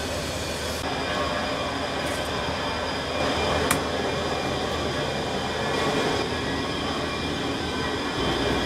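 Steady drone of running machinery, with one short sharp click about three and a half seconds in.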